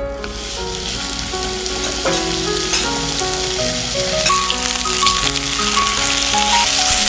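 Steak sizzling as it sears in a hot, oiled frying pan. The steady hiss grows somewhat louder toward the end, with a couple of sharp clicks a few seconds in.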